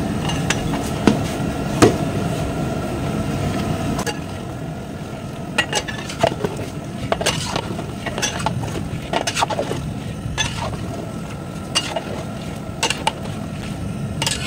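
Metal ladle clinking and scraping against a large cooking pot in irregular knocks as the chicken, onion and tomato are stirred, over a steady low rumble.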